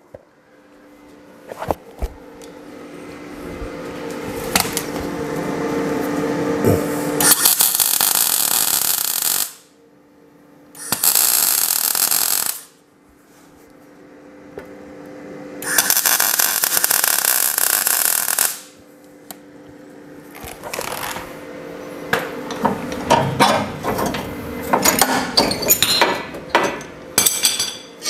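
Welder tack-welding a rusty steel rectangular-tube brace onto an old truck cab. Three welding bursts of two to three seconds each, with a faint hum between them, then a run of short, irregular pops and clicks through the last several seconds.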